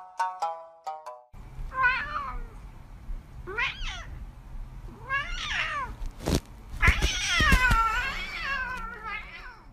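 A domestic cat meowing five times, the fourth meow long and wavering, over a low steady hum, with a single short knock about six seconds in. For the first second or so, a plinking music tune plays.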